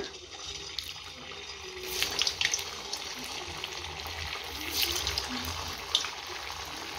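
Semolina kakara pitha balls deep-frying in hot oil in a kadai: steady sizzling and bubbling with crackles, louder about two seconds in and again near five seconds as more balls go into the oil.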